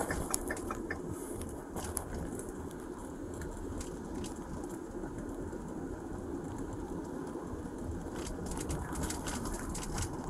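Steady low rumble of a patrol car's cabin while driving, with scattered light clicks and rustling, more of them near the end.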